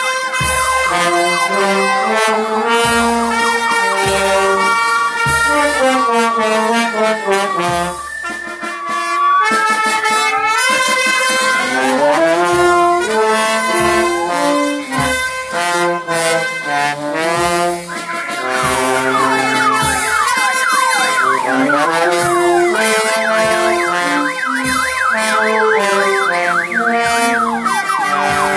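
Brass band playing a tune over a regular bass-drum beat, the horns' notes sliding up and down in pitch in places.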